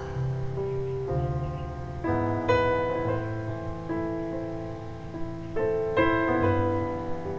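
Piano playing slow chords, each group of notes struck and left to ring and fade before the next.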